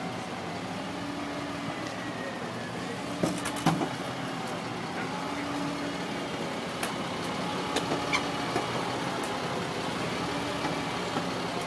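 Hydraulic rescue tool (jaws of life) at work on a crashed car's door, its engine-driven pump running steadily, with a few sharp cracks and snaps of metal and glass about three seconds in and again a few seconds later.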